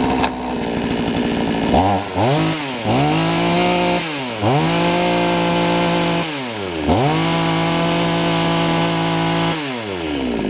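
Two-stroke chainsaw with an 18-inch bar, running free with no cut. It idles for about two seconds, then is revved four times: a quick blip, then three longer revs held at high speed for one to two and a half seconds each, dropping back to idle between them and near the end.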